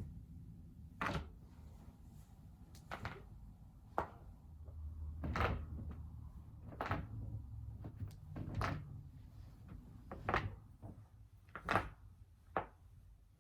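A person's joints cracking: about nine sharp pops, one every second or two at uneven intervals, over a low rumble.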